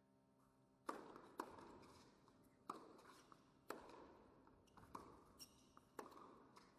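Tennis rally on an indoor hard court: a series of sharp racket strikes and ball bounces, about one a second, each with a short echo.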